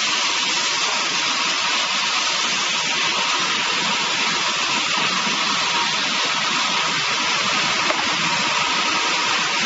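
Five-head horizontal band saw resaw running, a steady high hissing noise without a break, as its band blades saw timber into planks.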